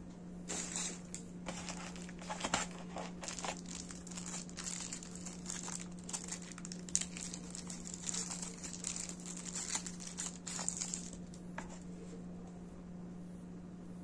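Thin plastic wrapping crinkling and rustling in quick irregular bursts as a small USB charging cable is pulled out of it and handled, stopping near the end.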